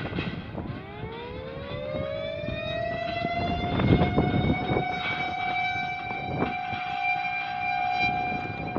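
Mechanical air-raid siren winding up: its tone rises steadily for about three seconds, then holds one steady pitch with several overtones above it.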